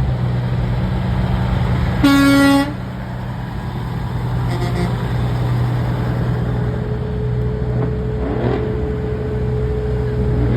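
Semi truck engines running with a steady low rumble, cut about two seconds in by one short, loud truck horn blast. From about seven seconds in, a steady tone sounds over the rumble.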